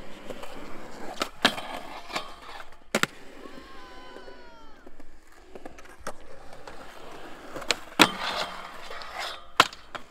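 Skateboard wheels rolling over smooth concrete, with several sharp clacks of the board striking the ground. The loudest clacks come late, about eight seconds in and just before the end.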